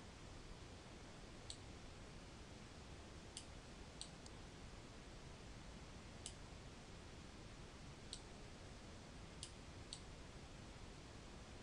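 Computer mouse button clicked about eight times at irregular intervals, some in quick pairs, as an image is dragged and resized on screen. The clicks are faint over a low steady hiss.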